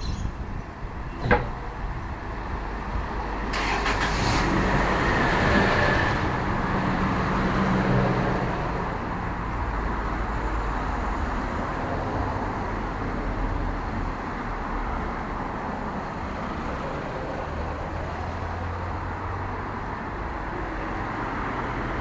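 Road traffic on a busy city street: motor vehicles passing close by. The traffic noise swells to a peak between about four and eight seconds in, then settles to a steady level. A single sharp knock sounds about a second in.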